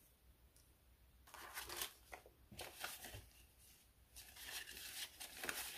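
Paper banknotes rustling softly as a handful of dollar bills is picked up and fanned out, in short bursts that begin about a second in, pause briefly, and pick up again near the end.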